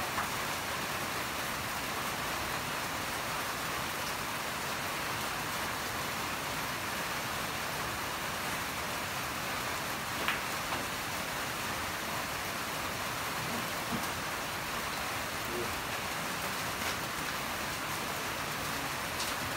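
Pool cue striking the cue ball once with a sharp click about halfway through, over a steady hiss.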